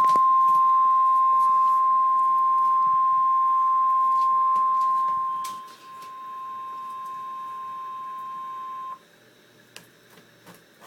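Emergency Alert System alert tone announcing a severe thunderstorm warning: one steady, high, single-pitched beep held for about nine seconds. It drops in volume a little past halfway and then cuts off abruptly. A few faint clicks follow.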